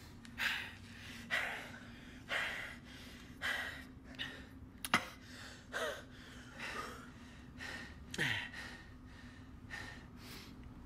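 Men panting hard, with gasping breaths about once a second, over a low steady hum. A single sharp click about five seconds in.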